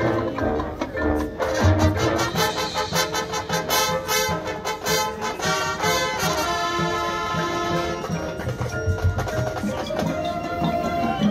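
High school marching band playing its field show: brass, drums and front-ensemble mallet percussion. Quick struck notes and low drum hits give way to long held brass chords about six seconds in.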